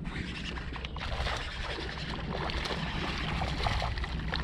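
Water sloshing and washing against a fishing kayak's hull over a steady low rumble of wind on the microphone; the wash grows fuller about a second in.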